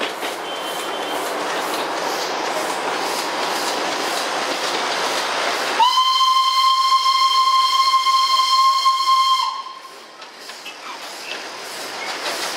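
Darjeeling Himalayan Railway toy train running with a steady rushing noise, then its steam locomotive's whistle blows one long steady blast about six seconds in, lasting some three and a half seconds and dipping slightly in pitch as it cuts off.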